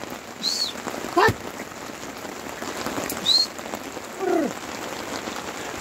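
Heavy rain falling on a tarpaulin tent, a steady hiss, with a few short high chirps and a brief falling call about four seconds in.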